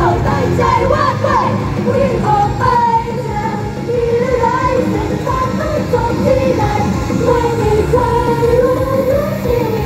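Upbeat idol pop song: young women's voices singing the melody into handheld microphones over a full backing track.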